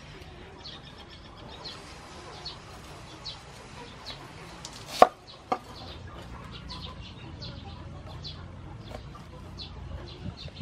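Chickens clucking and peeping in the background, short high calls repeating every second or so, with a sharp knock about five seconds in and a smaller one just after.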